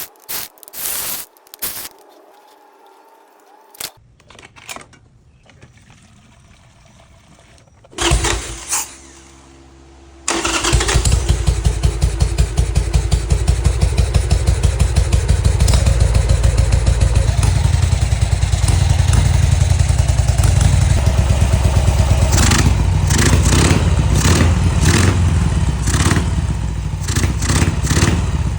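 Harley-Davidson Sportster's V-twin engine being cranked on the electric starter, catching about ten seconds in and then idling with an even, pulsing low beat. A few knocks come before the cranking.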